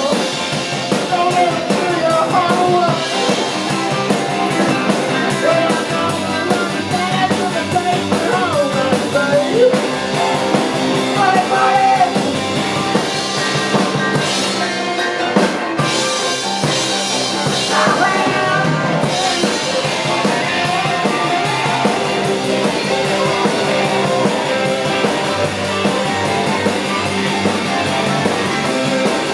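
Live rock-and-roll band playing, with drum kit, guitar and singing.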